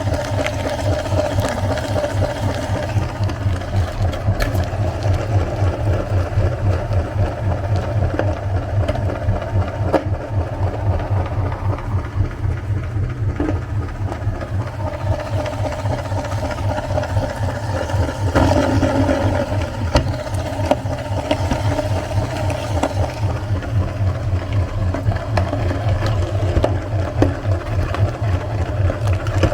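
Electric meat grinder running steadily: a constant motor hum with a fast, even pulsing and scattered small clicks.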